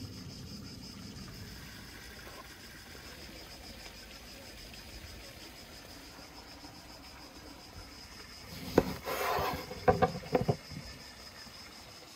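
Steady high-pitched insect chirring in the background. About nine seconds in, a brief rustling clatter with a sharp click, then three or four quick sharp knocks.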